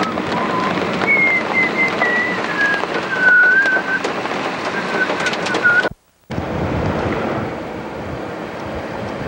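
Steady wind and rain noise on a camcorder microphone, with a thin whistling tone that wavers and drifts slowly downward for several seconds. The sound drops out for a moment about six seconds in.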